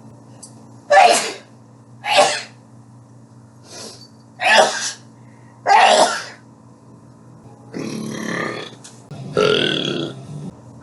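A person burping over and over: five short burps a second or so apart, one of them fainter, then two longer, drawn-out burps near the end.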